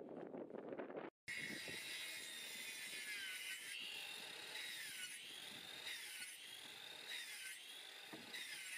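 Makita circular saw cutting into a wooden floor joist. Its high motor whine sags in pitch several times as the blade bites into the timber, then climbs back.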